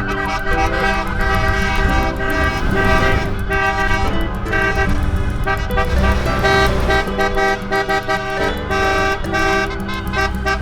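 Many car horns honking at once, overlapping steady blasts of different pitches that start and stop over a low rumble of engines.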